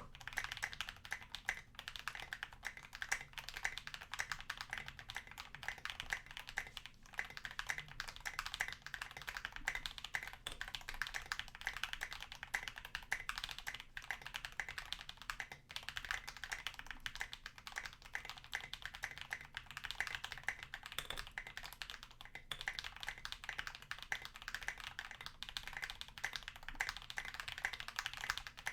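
Continuous fast typing on a custom 65% mechanical keyboard with lubed Holy Panda tactile switches, a brass plate and SA-profile keycaps in an aluminium Tofu65 case: a dense, irregular run of keystroke clacks that begins abruptly.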